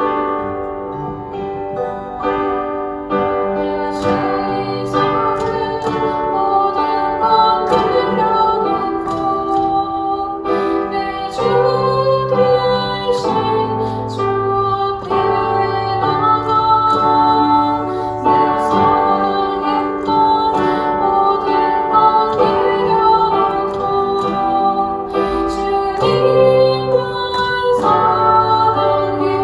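A worship band performing a slow Korean Catholic hymn: keyboard and guitar with a female vocal, and drums and cymbals coming in about four seconds in.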